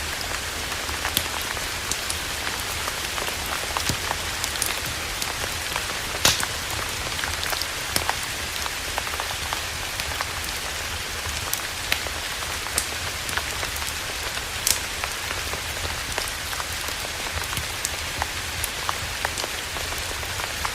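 Campfire crackling: a steady hiss with irregular sharp pops, the loudest about six seconds in and again near fifteen seconds.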